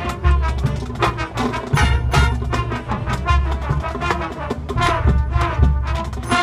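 Marching band playing a field show: brass with drumline, with heavy low bass hits recurring through the passage.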